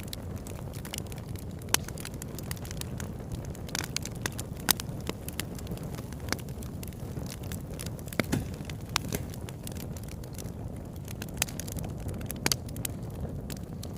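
Crackling fire: irregular sharp pops and snaps over a steady low rumble.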